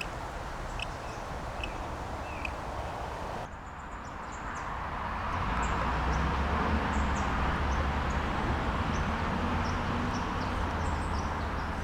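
Small birds chirping in short, repeated high calls over a steady low rumble. About three and a half seconds in, the background changes abruptly, the chirps get higher and the rumble gets louder.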